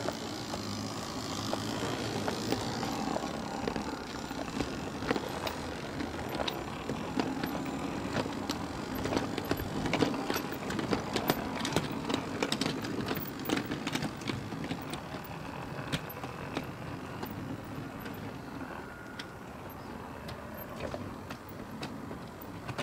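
Full-size steam train rolling past: a steady rumble with a run of sharp clicks and clanks from wheels over rail joints and couplings, building to a peak about halfway through and then easing off.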